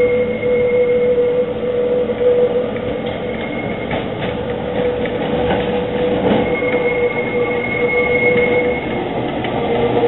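A Kirnitzschtalbahn electric tram with trailers approaching and running past on curving street track, with a steady high whine from the wheels and a few sharp clacks over the rails partway through.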